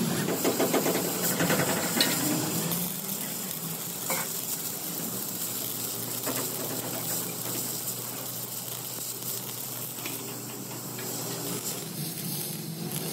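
Stick (arc) welding on steel plate: the steady crackling sizzle of the welding arc, with a couple of sharp clicks in the first few seconds.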